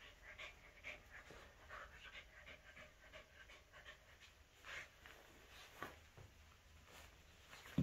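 Shih Tzu–Corgi mix dog chewing and tugging at a plush shark toy: many soft gnawing and fabric-rustling sounds, a few louder clicks later on, and a sharp thump at the very end.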